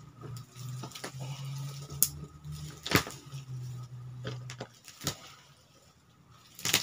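A few sharp knocks and cracks as a cut conifer trunk is pushed over with booted feet, the strongest about three seconds in, over a faint low hum that stops shortly before five seconds in.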